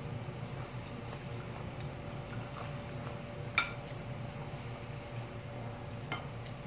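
Quiet eating at the table: small clicks of utensils and soft eating noises over a steady low hum, with one clear ringing clink of a utensil against a dish about three and a half seconds in.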